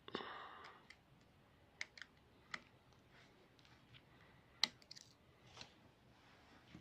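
Faint, scattered sharp clicks and taps of small tools and parts being handled as an iPhone 6s is reassembled, with a brief noise just at the start and the loudest click a little past the middle.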